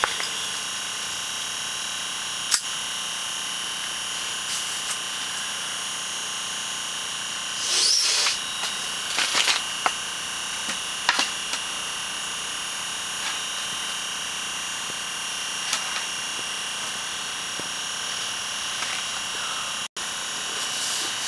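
A steady, high-pitched whine made of several fixed tones, with a short rustle about eight seconds in and a few light clicks.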